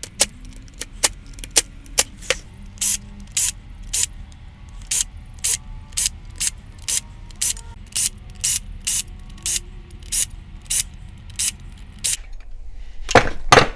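Cordless impact driver working a tight carburetor rack screw: sharp impacts about twice a second over a low motor hum. They stop about twelve seconds in, followed by a brief clatter near the end.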